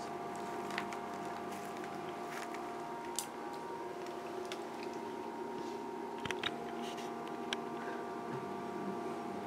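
A steady hum of several even tones, with a few faint clicks and taps scattered through it.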